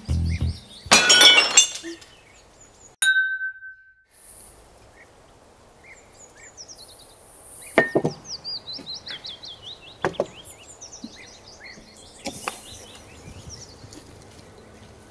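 China dinner plates smashing in a loud crash with a long ringing clatter about a second in. Then birds chirp, and two sharp clinks of dishes come later.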